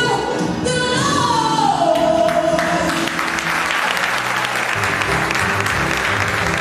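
Music with singing ends a phrase on a held note that slides down in pitch. About two and a half seconds in, audience applause starts and continues as the music carries on underneath.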